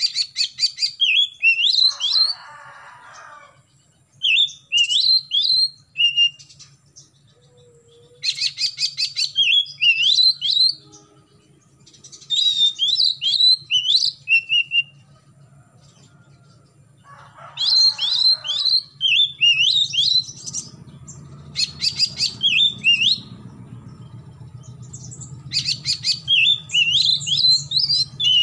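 Oriental magpie-robin singing in six separate phrases with pauses of a few seconds between them. Each phrase opens with a quick run of clicking notes and goes on into high, slurred whistles.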